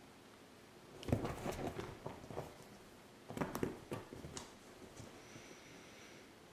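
A kitten's paws and claws scrabbling and thumping on a leather sofa cushion as it chases its tail, in two bursts: one about a second in, another at three and a half seconds.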